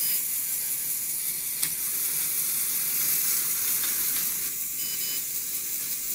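LEGO loom mechanism running: its small electric motors and plastic gears and rollers whirr steadily with a high hiss, with a short click about a second and a half in.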